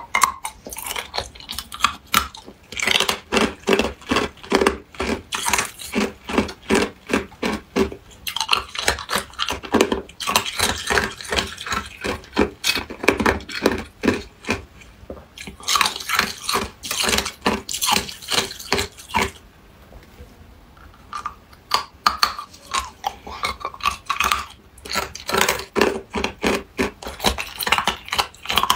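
Clear ice cubes being bitten and crunched between the teeth close to the microphone: runs of sharp, rapid crunches, about two to three a second, broken by a few short pauses, the longest about twenty seconds in.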